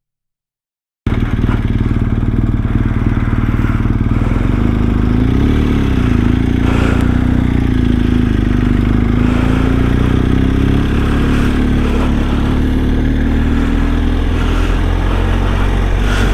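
BMW R1250 GS boxer-twin motorcycle engine running steadily under way, with wind noise over it; its note holds almost level, wavering slightly. It cuts in about a second in, after a brief silence.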